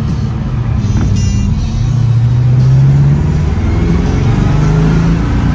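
1967 Camaro with a swapped-in LS V8 driving, its engine note rising twice as it accelerates.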